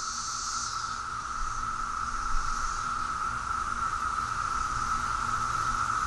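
Chorus of Brood X 17-year periodical cicadas: a dense, steady drone held at one pitch, with a higher buzzing layer that swells and fades, slowly growing louder.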